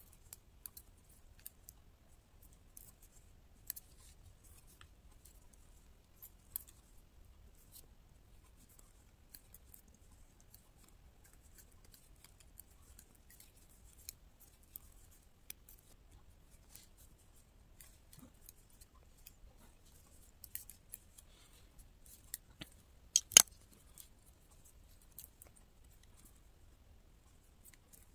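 Metal double-pointed knitting needles clicking lightly against each other in irregular ticks as stitches are worked, with a louder double clack near the end.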